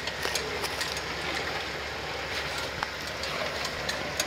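Jeep driving slowly on a dirt trail: a steady low engine and drivetrain rumble with scattered small clicks and knocks from the vehicle and trail.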